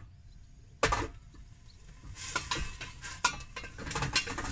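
Wooden spatula stirring and scraping in a stainless steel pot as pickled cabbage and seasoning fry in oil. There is a sharp knock about a second in, and from about two seconds in a steady sizzle with quick, repeated scraping clicks.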